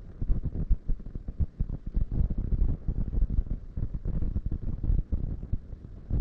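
Irregular low rumbling and buffeting, with short knocks throughout, from wind or moving water against the camera's microphone.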